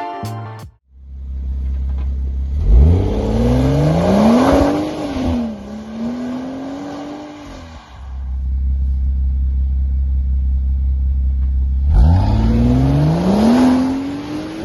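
BMW M140i's 3.0-litre B58 straight-six on its stock exhaust, accelerating hard twice with a rising engine note. In the first pull the pitch drops briefly at a gear change and then climbs again; a steadier low rumble comes between the two pulls.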